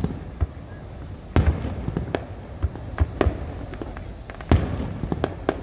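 Aerial firework shells bursting: an irregular string of sharp booms, each trailing off in an echo, with quicker small cracks near the end.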